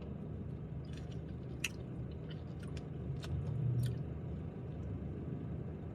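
A person chewing a mouthful of yogurt bowl with fruit and coconut, with scattered soft mouth clicks and smacks over a steady low hum.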